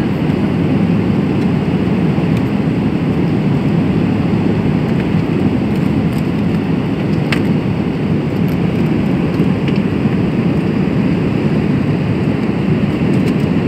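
Steady cabin noise of a Boeing 777-300ER in flight: the engines and airflow heard from inside the economy cabin as a loud, even, low rush with no change throughout.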